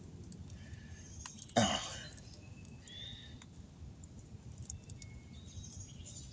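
A man's single short vocal sound, like a throat clear or an "uh", about a second and a half in, over a low background hum with scattered faint small clicks.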